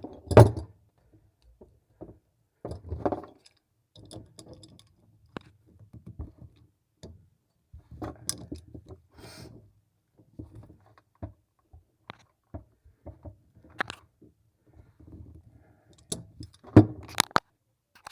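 Pliers gripping and working a sink shut-off valve's stem loose, with irregular metal clicks, scrapes and handling knocks; the sharpest knocks come about half a second in and near the end.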